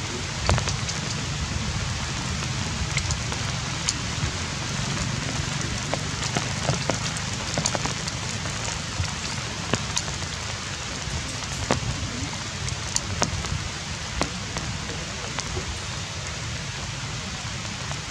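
Steady outdoor background hiss with a low rumble underneath and scattered sharp clicks and crackles.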